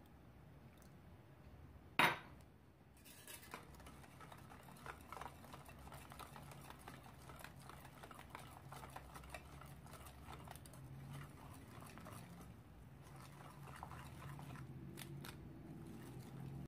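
Wire whisk stirring milk into flour in a ceramic bowl: light scraping and small clicks of the wires against the bowl, over a faint low hum. One sharp knock about two seconds in is the loudest sound.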